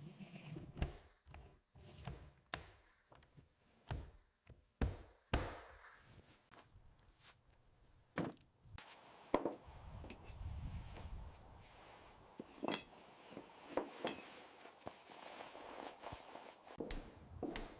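Hand tools striking timber: irregular knocks and thuds, about a dozen sharp strikes spaced unevenly.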